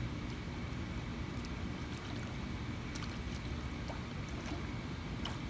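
Light water splashing and lapping as a swimmer in a pool moves her legs during a handstand and lets them sink, with a few faint splashes in the second half, over a steady low rumble.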